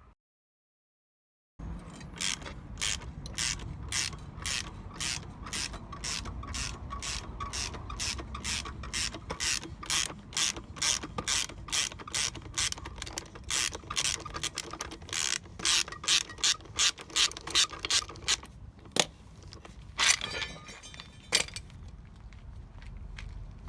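Hand ratchet wrench clicking as it is worked back and forth, turning a puller's bolt to draw the pulley flange off a ZMZ-402 engine's crankshaft. The clicks come in an even run, about two or three a second, then stop, followed by a few separate clicks and knocks near the end.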